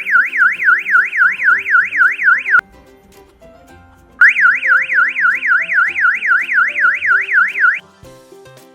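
Electronic alarm siren of a wireless home burglar alarm system, sounding a loud, fast up-and-down sweeping tone of about five sweeps a second. It cuts off about two and a half seconds in, starts again after a pause of about a second and a half, and stops near the end.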